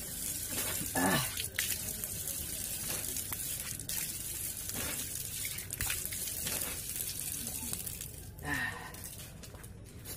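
Water running from an outdoor tap while a man splashes it on his face to wash, with two short vocal noises, about a second in and near the end.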